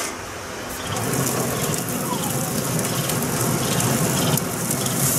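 Racks of lamb sizzling on hot grill grates with the lid open: a steady hiss with fine crackling that comes up about a second in.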